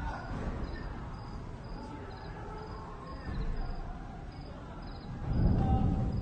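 Crickets chirping steadily, about two chirps a second. About five seconds in, a louder low rumble swells up and fades.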